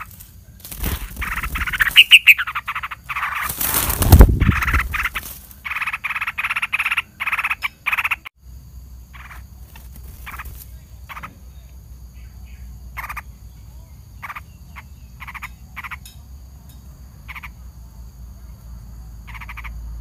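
Harsh rattling animal calls in quick short bursts, dense and loud for the first eight seconds, then sparser and fainter. A loud knock about four seconds in is the loudest sound.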